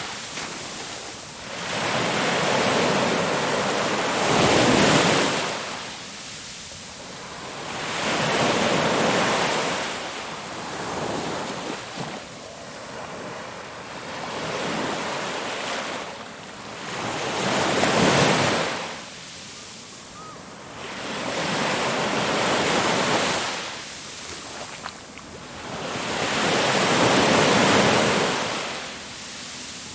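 Ocean waves breaking and washing in, a fresh surge every four or five seconds, each swelling up and then fading back.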